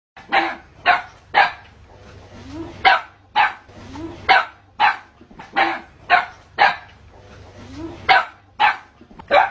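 A dog barking repeatedly in quick runs of sharp barks, about two a second, with short pauses between the runs.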